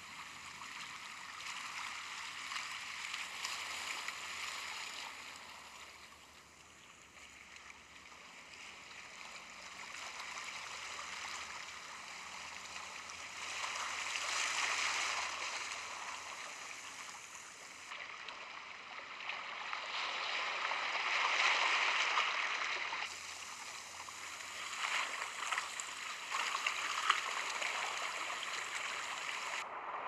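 Running water of a stream, a steady rush and gurgle that swells and eases in slow waves, loudest about halfway through and again some seconds later.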